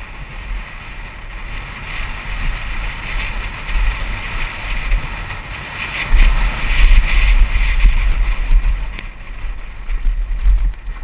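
Wind buffeting a helmet-mounted action camera's microphone on a fast mountain-bike descent, mixed with the rumble of tyres rolling over dirt and gravel trail. The rumble is loudest about six to eight seconds in.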